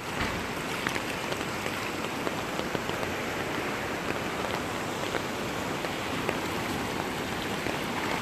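Fast-flowing brown floodwater rushing past with rain falling: a steady rushing hiss with scattered small taps.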